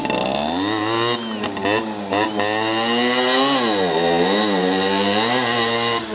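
Small single-cylinder moped engine revving up and down while the bike is held in a wheelie. Its pitch dips and climbs again several times.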